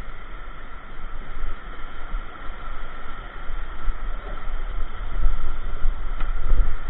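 Whitewater rapids rushing around a kayak, with a heavy, uneven rumble on the camera microphone that grows louder after about five seconds.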